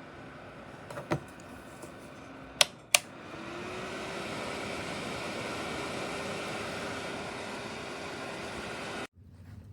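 Two sharp clicks, then the small fan of a Lerat 500W PTC space heater spins up with a rising whine and runs on as a steady whir. The whir cuts off suddenly near the end.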